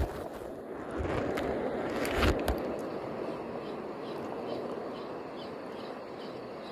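A few handling knocks in the first seconds, then a small spinning reel being wound, with faint regular ticking about three times a second over steady wind and water noise.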